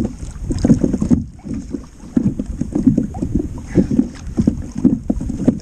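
Wind buffeting the microphone in uneven gusts, over water slapping against a small boat's hull.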